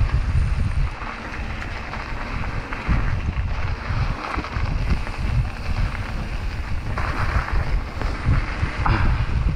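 Wind buffeting the microphone of a camera on a moving mountain bike, over the rolling noise of tyres on a dirt trail, with a sharp rattle near the end.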